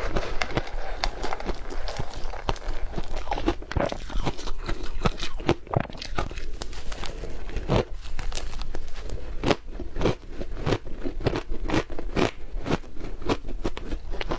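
Close-miked biting and chewing of yellow powdery snow: a dense, irregular run of crisp crunches, several a second.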